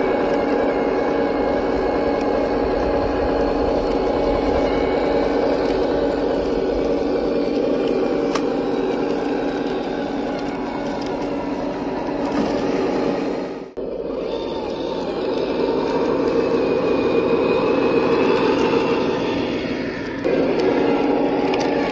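Simulated big-rig diesel engine sound from a GT Power multi-function sound unit in a Tamiya King Hauler RC truck, running steadily as the truck drives. Light crackling of the tyres over dry grass and twigs lies under it. The sound cuts out for an instant about two-thirds of the way through.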